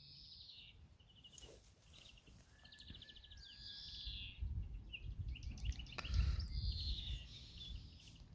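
Small songbirds singing: repeated high trilled phrases, some ending in a quick falling flourish. A low rumble rises under them in the second half.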